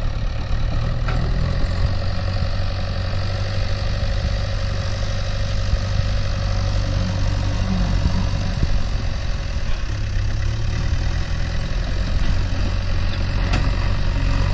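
Backhoe loader's diesel engine running steadily as the machine drives and moves soil.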